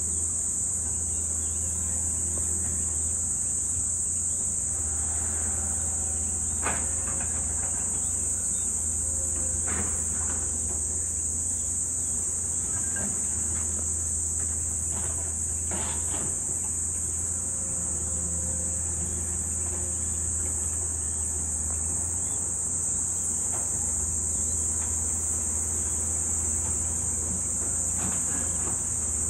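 A steady, high insect buzz over the low drone of distant excavator diesel engines, which swells and fades as they work. A few knocks stand out, one about a third of the way in and a couple around the middle.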